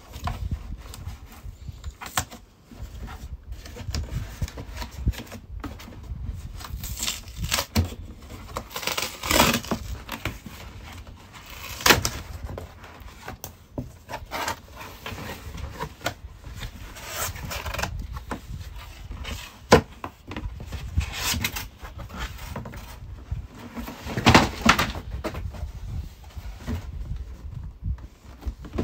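Corrugated cardboard shipping box being opened by hand: the perforated pull strip tearing away, flaps scraping and rustling, and the shoe box inside being slid and lifted out. Irregular rustles and scrapes throughout, with several sharper tearing or knocking sounds.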